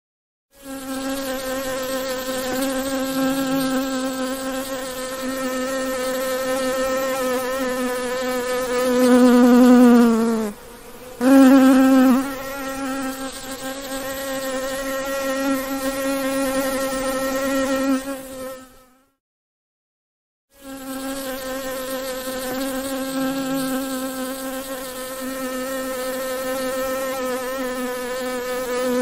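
A bee buzzing at a steady pitch in three long stretches. Each stretch swells louder and sags lower in pitch before it breaks off. There is a brief gap about ten seconds in and a pause of about a second and a half around two-thirds of the way through.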